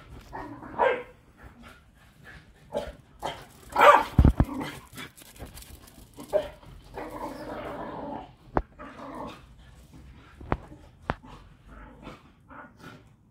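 Two Patterdale terriers barking and yipping at each other in play, in irregular short outbursts, loudest about four seconds in. Three sharp clicks come in the second half.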